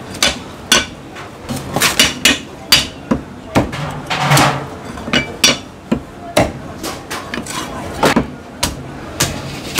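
Chinese cleaver chopping freshly roasted suckling pig, crisp skin and bone, on a thick wooden chopping block. A run of sharp, irregular chops and knocks, about two a second, some much louder than others.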